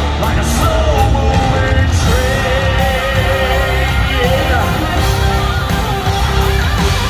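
Live rock concert: a band playing loud with drums, electric guitar and a male singer's voice.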